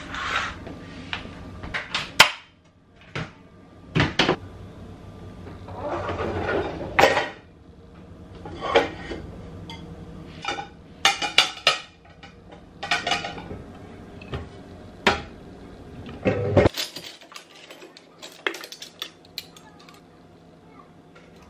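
A broom sweeping across a wood floor into a plastic dustpan, then dishes and metal cutlery clinking and knocking as they are loaded into a dishwasher's racks, in many short separate clinks.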